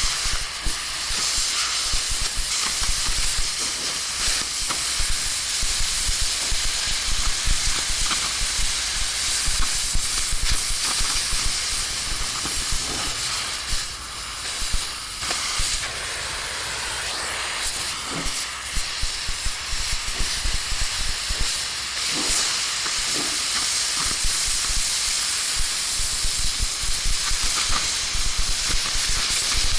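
Steady loud hissing with dense crackling underneath, continuing without a break.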